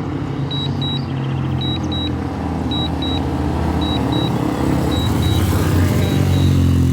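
A steady low rumble, with a drone controller's warning alarm over it: pairs of short high beeps repeating about once a second, the alert that sounds during a signal-loss return-to-home.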